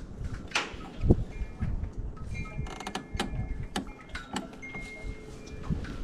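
Gusty wind buffeting the microphone as an uneven low rumble, with scattered knocks and clicks and a few brief high tones.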